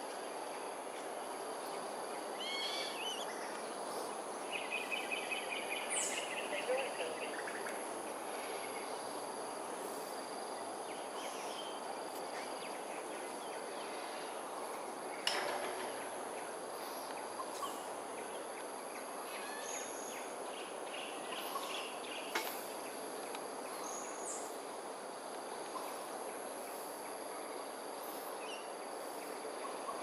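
Outdoor morning ambience: a steady wash of background noise with the constant high drone of insects, and scattered bird calls over it, including a rapid trill about five seconds in. Two sharp clicks stand out, one about halfway through and another a few seconds later.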